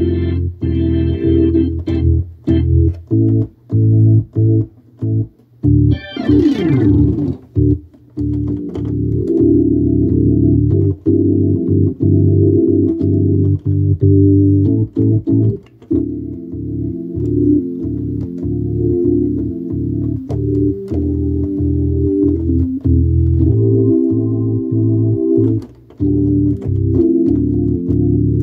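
Hammond organ playing chords in a low-to-middle register, in short detached stabs with brief breaks between them, and a quick glissando swept across the keys about six seconds in.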